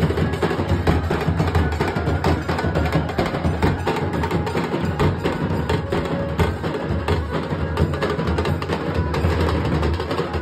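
Nasik dhol ensemble: several large two-headed dhol drums beaten with sticks in a fast, loud, unbroken rhythm, dense sharp stick strikes over a deep drum bass.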